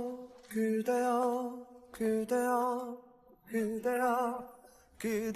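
Soundtrack music: a singer's voice holds slow, wavering notes in short phrases, each about a second long, with brief pauses between them.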